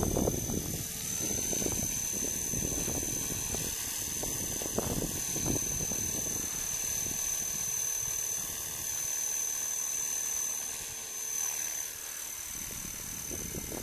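Electric 500-size RC collective-pitch helicopter hovering in flight: steady rotor sound with a high, steady whine over it. Low, uneven buffeting in the first part eases after about nine seconds.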